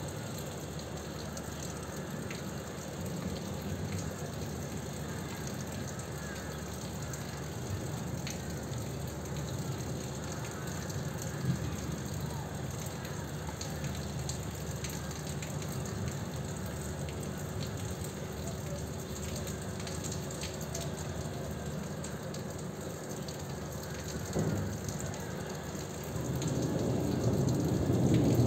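Steady rain during a thunderstorm, with a low thunder rumble swelling near the end.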